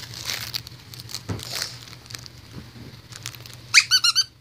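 Puppies scuffling in play on carpet, with soft rustling and light scratching, then a quick run of a few short, high-pitched puppy yelps near the end.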